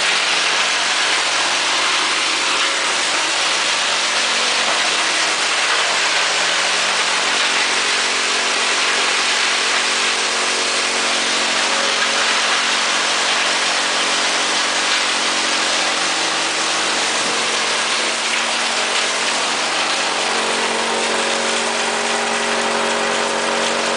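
Belt-driven wood chipper running on its electric motor: a loud, steady hum over a dense hiss, with the hum growing stronger near the end.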